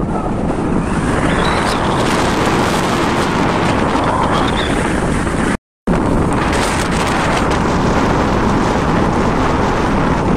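Strong mountain wind buffeting the microphone in a loud, steady rush. The sound cuts out completely for a moment just past halfway, then resumes.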